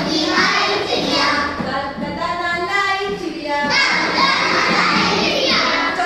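A class of young children singing a Hindi nursery rhyme together in unison. About four seconds in it turns into a louder, shouted stretch that falls away shortly before the end.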